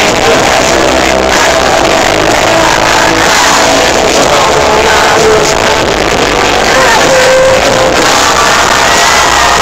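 Live rock band playing loudly on stage, with electric guitar, heard from within the audience.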